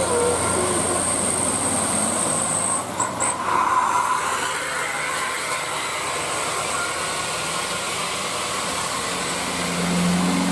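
Coach buses driving past on a wet road in heavy rain: a steady hiss of rain and tyre spray under the buses' engine noise, with a brief change about three seconds in and a steady low hum growing near the end as another bus comes close.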